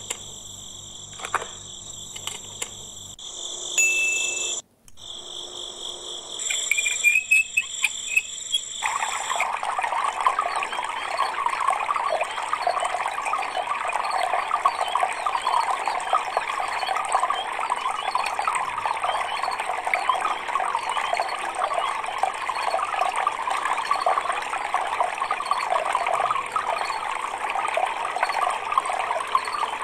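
Water spraying from a miniature water tanker's pipe and pattering onto gravel and soil, a steady hiss that starts about nine seconds in. Before that, steady high-pitched tones, cut off briefly about five seconds in.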